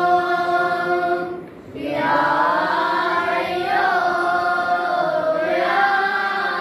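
A group of boys chanting an Islamic prayer together in unison, holding long drawn-out lines, with one short break for breath about a second and a half in.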